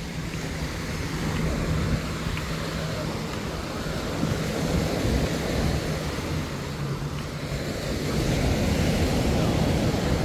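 Small waves washing onto a sandy beach, a steady rushing that swells and eases, with wind buffeting the microphone. A faint steady low hum runs underneath.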